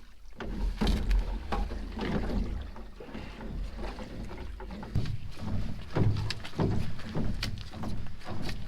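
Canoe paddle strokes dipping and splashing in the water at an irregular pace, over a low steady rumble.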